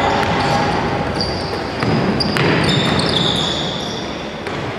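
Basketball play on a hardwood court: sneakers squeak in several short high chirps, and a ball bounces.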